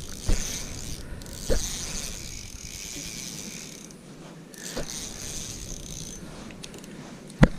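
Fishing reel being worked, giving a ratcheting, whirring mechanical sound that comes and goes, with a few dull knocks, the loudest one near the end.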